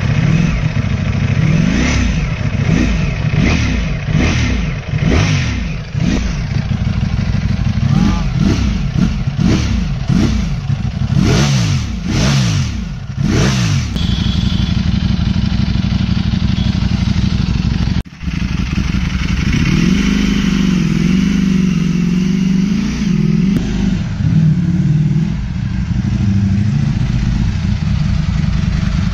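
Ducati Streetfighter V4's V4 engine breathing through an aftermarket exhaust, revved in a quick series of throttle blips, each rising and falling, for about the first fourteen seconds. After a short break it runs at low revs with a wavering note.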